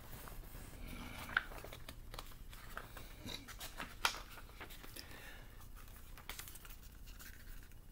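Paper pages of a small book being handled and turned: a faint rustling with a couple of light clicks.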